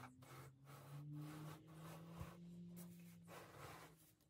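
Faint rubbing and sliding as hands shift a wooden mantel clock case on a paper-covered workbench, in short irregular strokes over a faint low hum.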